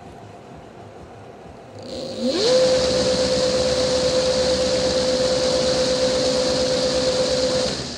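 250 W electric-scooter motor spinning test rotor blades. About two seconds in it spins up with a whine that rises in pitch within half a second, then holds at one steady pitch over a loud hiss, and cuts off near the end.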